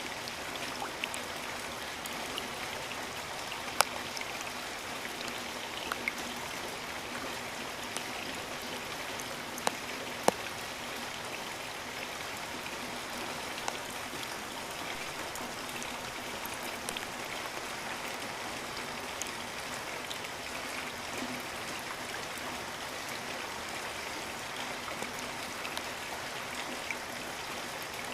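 Steady rain falling, an even hiss with scattered drop clicks and a few louder single drips, about four and ten seconds in.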